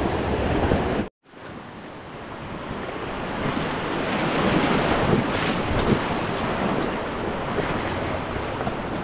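Rushing whitewater of river rapids, with wind buffeting the microphone. About a second in the sound cuts out abruptly, then builds back up over the next few seconds.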